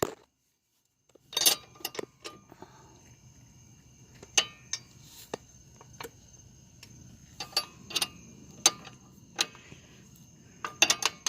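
Ratchet wrench clicking in short, irregular strokes while a suspension nut on the truck's control arm is tightened; it starts after about a second of silence.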